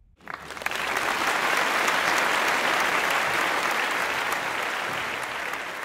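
Applause from many hands, coming in sharply just after the start, holding steady, then slowly fading out near the end.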